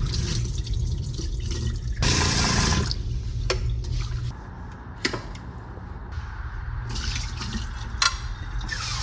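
Kitchen tap water running into a sink in spells, turned off for a couple of seconds midway and back on near the end, with a few sharp knocks of things handled in the sink over a steady low hum.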